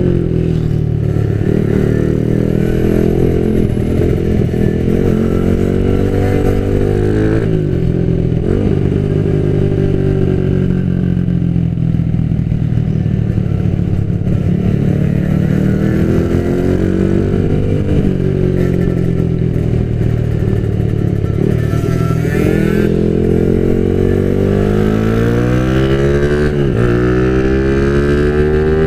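Small single-cylinder motorcycle engine heard from onboard, accelerating through the gears: the pitch climbs, then drops sharply at each of several gear changes, over steady wind and road rush.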